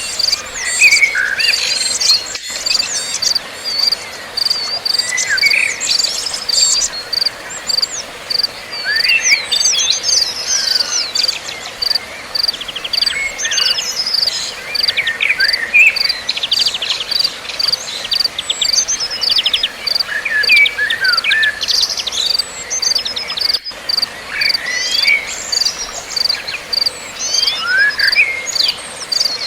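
Wild white-eyes chirping and twittering in short calls and quick trills, in clusters. Under them an insect sings a steady pulsing note at about two beats a second.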